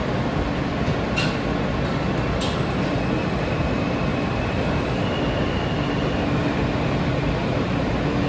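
New York City subway train heard from on board, a steady rumble of the car on the rails with a faint motor whine. Two sharp clicks come a little over a second in and again about a second later.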